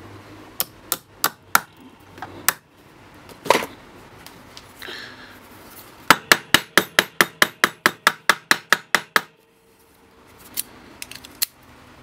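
Small hammer tapping a sealed brass padlock, its key jammed in, against a block of wood to knock the pins out of the drilled pin chambers. A few scattered taps come first, then a quick even run of about fifteen light taps, roughly five a second, and a few faint clicks near the end.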